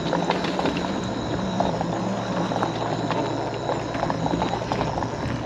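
Electric mobility scooter driving over a bumpy grass trail: a steady motor hum with frequent rattles and knocks as it bounces over clumps of grass.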